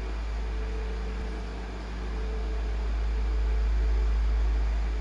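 Steady low rumble with a faint hum and hiss, a little louder in the second half; no distinct sound stands out.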